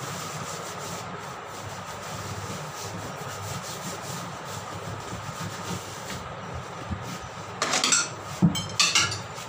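Rubber inner tube rubbing against the inside of a tyre as it is pushed in by hand, a steady scuffing. Near the end come two louder rubbing scuffs with a short knock between them.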